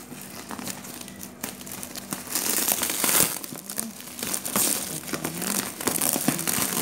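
Clear plastic stretch wrap on a parcel being pulled and peeled off by hand, crinkling and crackling irregularly with sharp snaps, loudest around two and a half to three seconds in.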